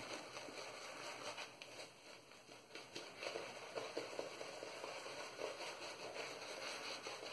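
Stirling 26mm Finest badger shaving brush scrubbing a wet, loose shaving-soap lather over a stubbled face: a faint, quick, irregular wet swishing and squishing.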